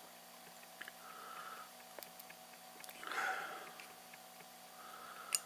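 Faint breathing through the nose, three soft breaths about two seconds apart, with a few small clicks of handling.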